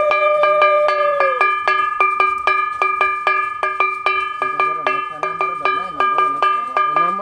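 A brass hand bell rung quickly and steadily, about four strikes a second, each stroke ringing on. A long held tone under it ends with a falling pitch about a second and a half in, and voices join near the end.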